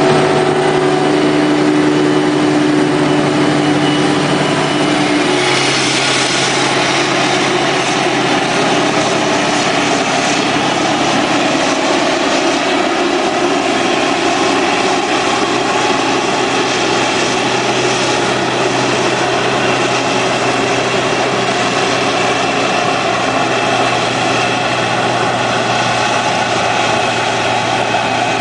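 Self-propelled forage harvester running at full work, chopping maize with a 10-row corn header: a loud, steady machine drone with hum tones from engine and chopper. About five seconds in the tones shift and a hissing rush grows stronger.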